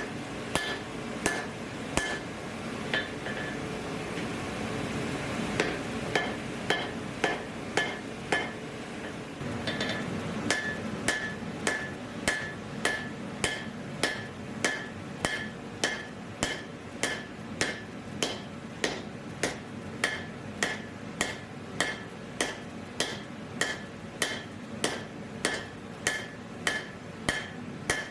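Hand hammer striking hot steel on an anvil in a steady rhythm, a bit under two blows a second, each with a short metallic ring: hammering to set a forge weld. The blows thin out for a few seconds early in the stretch, where a steady rushing noise stands out beneath them.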